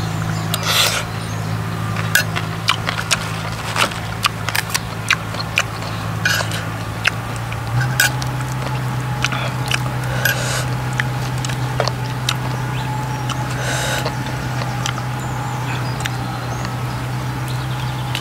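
Close-up eating sounds: crisp deep-fried mackerel and lettuce being chewed and crunched, with many short clicks and smacks and a spoon tapping the plate. A steady low hum runs underneath.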